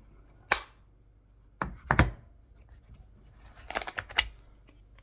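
Sharp clicks and knocks of hand tools being handled and set down: single clicks about half a second in and a pair around two seconds in, then a quick run of clicks near four seconds.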